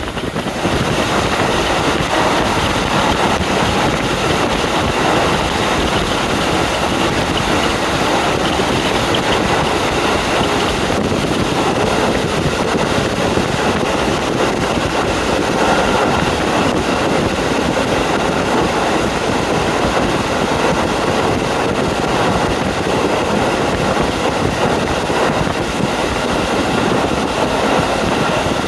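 Wind rushing in through the open window of a KiHa 40 diesel railcar under way, mixed with the steady running noise of the train.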